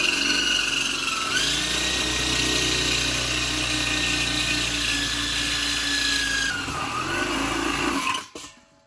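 Electric drill running under load as a larger bit widens a pilot hole in steel. Its whine dips briefly about a second in, holds steady, then sags and stops about eight seconds in.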